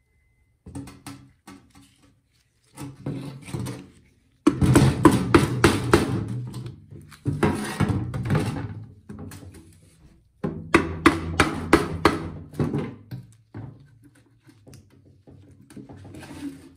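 Rubber mallet tapping on the cast-metal crankcase of a Honda EU2000i engine, in several bursts of quick strikes with short pauses between, to break the case cover loose from the block.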